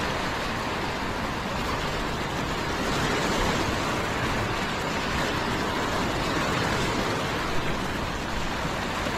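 Small waves washing in over and around shoreline rocks, a steady hiss of surf with no breaks.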